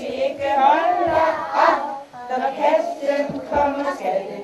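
A group of young children singing a Christmas song together, with a short break between phrases about halfway through.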